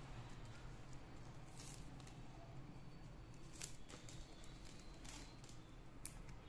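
Faint rustling and a few short clicks of plastic craft wire strands being handled and pulled tight into a knot.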